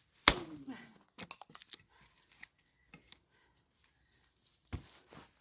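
Axe splitting firewood: a sharp strike about a third of a second in, followed by a short falling tone, scattered light knocks and clatter, then a second strike near the end.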